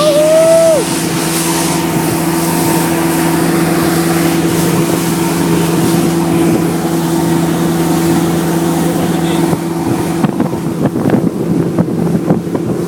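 A boat motor running at a steady speed with a constant drone, with wind buffeting the microphone. A short rising-and-falling tone sounds in the first second, and from about ten seconds in the drone eases and scattered knocks come through.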